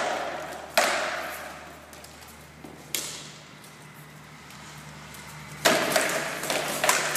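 Rattan swords cracking against shields and armour in SCA heavy combat sparring: a hard strike about a second in, a lighter one around three seconds, then a quick flurry of blows near the end. Each crack rings out with a long echo under the court's roof.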